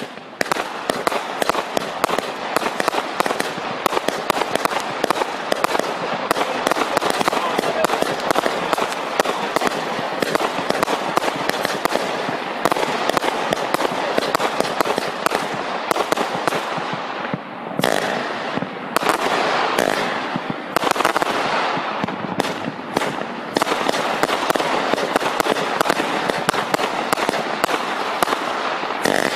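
Jonathan's Fireworks Firestorm, a 134-shot single-ignition firework cake, firing in a rapid continuous barrage: shots launching and bursting several times a second over a dense haze of noise, with the pace thinning briefly about two-thirds of the way through.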